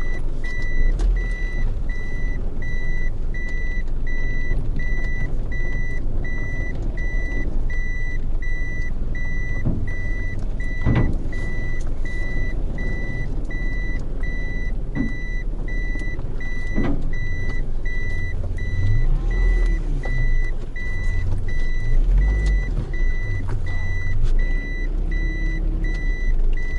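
Car driving slowly off a ferry ramp, heard from inside the cabin: low engine and road rumble with a couple of sharp knocks partway through. Over it, a steady high electronic beep repeats about twice a second.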